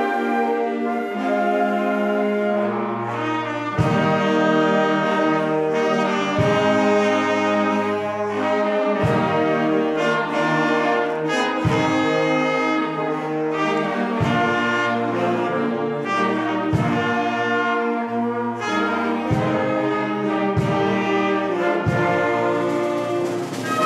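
Wind band music: brass and woodwinds playing held chords over a low drum stroke about every two and a half seconds.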